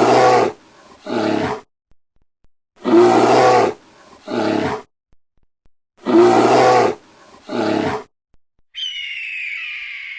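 A big cat roaring: a long call then a shorter one, repeated three times the same way. About nine seconds in, a hoarse, high, downward-sliding hawk scream follows.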